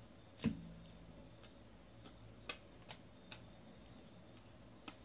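Baseball cards being flicked and shuffled by hand: a few sharp clicks and snaps of card stock. The loudest, with a short low knock, comes about half a second in, then four smaller clicks spaced through the rest.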